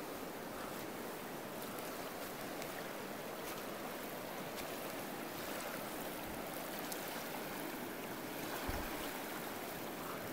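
Fast-flowing mountain river rushing steadily, a constant even roar of water.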